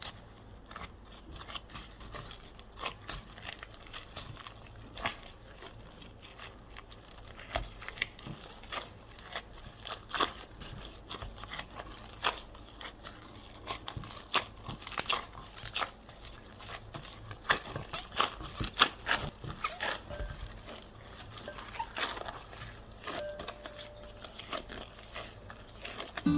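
Irregular crinkling and light clicks of hands at work during bread-baking prep in a kitchen, over a faint steady low hum.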